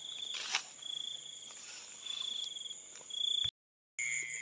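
Night insects chirring: a steady high-pitched ring with short pulsed trills repeating about once a second, and a single click about half a second in. The sound cuts out for a moment near the end and resumes with a different steady tone.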